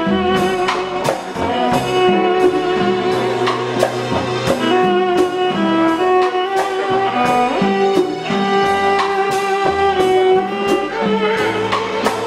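Live jazz band with a violin playing the lead line in long bowed notes over keyboard and drums.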